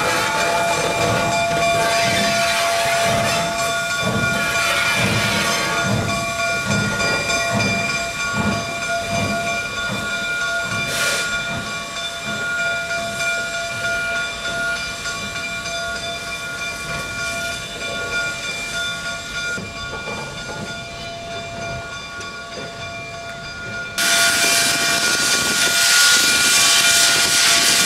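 Canadian Pacific 2317, a 4-6-2 steam locomotive, working slowly with its exhaust beating about twice a second for the first ten seconds over a steady hiss. About 24 s in a loud steam hiss starts suddenly as the cylinder cocks blow off.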